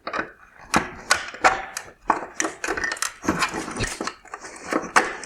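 Plastic cover being popped apart from a car headlight's LED drive unit: a quick, irregular run of plastic clicks, snaps and scraping as the clips give way.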